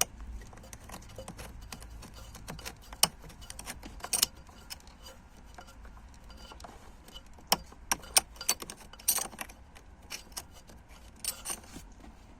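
Scattered sharp clicks and short scrapes of a cigarette lighter socket and its retaining ring being handled and turned tight, coming in small clusters with quieter stretches between.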